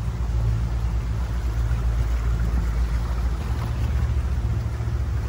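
Tour boat's motor running steadily underway, a low even drone, with a wash of water noise over it.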